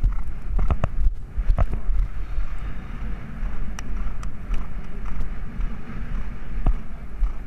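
Wind rumbling on the microphone of a camera carried by a horse's rider while the horse moves across the grass, with a few scattered sharp knocks.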